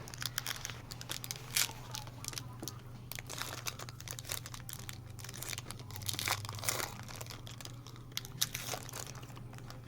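Trading-card pack wrapper being torn open and crinkled, a string of short, sharp crackles, over a steady low hum.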